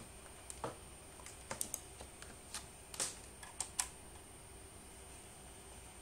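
Faint, scattered light clicks and taps, about a dozen over the first four seconds and then stopping: hands handling a small 3G/4G router and its cables on a desk.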